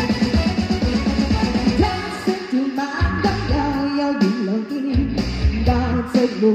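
A woman singing into a microphone over amplified rock-style backing music with drum kit and guitar. The voice comes in about two seconds in, and the bass and drums drop out briefly in the middle before returning.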